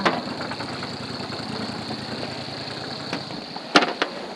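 A boat motor idling steadily, its low hum dropping away a little after three seconds in. Near the end come two sharp knocks, the loudest sounds here.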